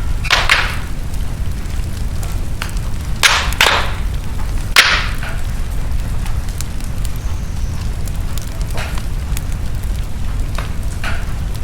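Fire in a fireplace crackling, with a steady low rumble under irregular sharp pops, a few louder ones bunched in the middle.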